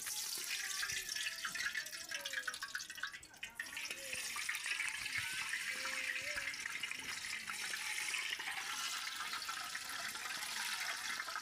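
Food sizzling and crackling in hot cooking oil in a pan, a steady dense sizzle that comes in suddenly at the start.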